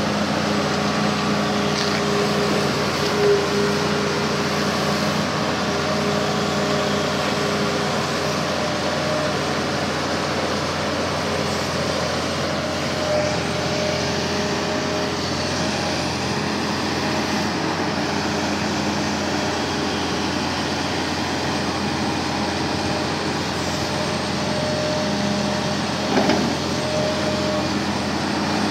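Hitachi Zaxis 350 LCH excavator's diesel engine running steadily, its hydraulic tones rising and falling as it digs, with a couple of short knocks, the loudest near the end.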